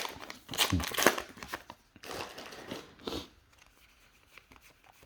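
Flesh and Blood trading cards being flipped through by hand: papery rustling and quick light clicks as cards slide off one another, dying down to faint handling about three seconds in.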